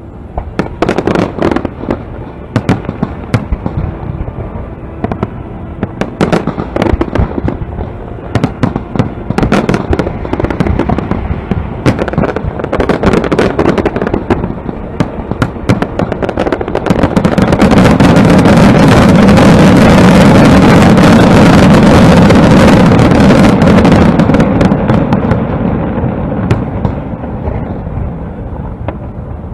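Aerial fireworks going off in quick succession: many loud, sharp bangs, building about halfway through into a continuous dense barrage that slowly fades near the end.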